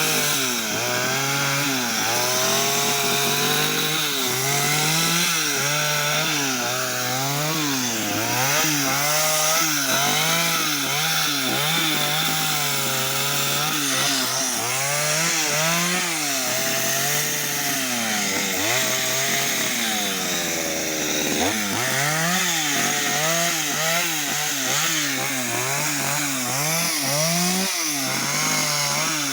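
Chainsaw revving up and down over and over as it cuts into wood during carving, its engine dropping nearly to idle about twenty seconds in before speeding up again.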